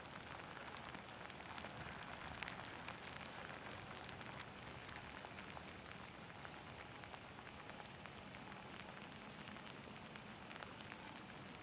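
Steady rain falling on the lake's surface, a soft even patter, with scattered sharp ticks of drops hitting close to the microphone.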